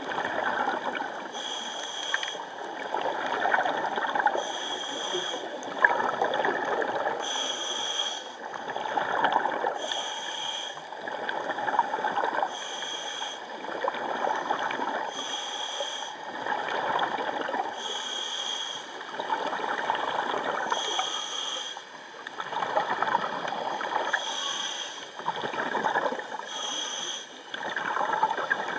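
Scuba regulator breathing underwater: a short, thin hiss on each inhale about every two and a half seconds, alternating with gurgling swells of exhaled bubbles.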